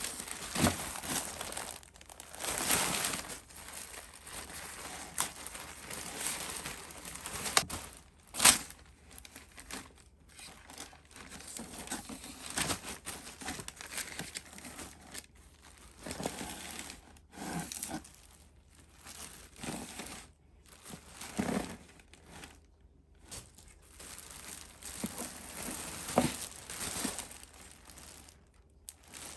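Paper or plastic crinkling and rustling as it is handled, in irregular bursts, with one sharp, louder crack about eight seconds in.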